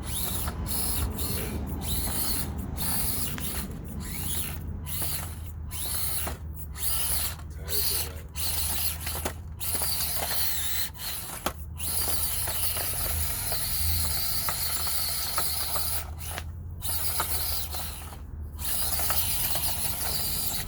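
Small electric motors and gearboxes of 1/24-scale Axial SCX24 RC crawlers whining in high gear, starting and stopping over and over as the trucks work over an obstacle.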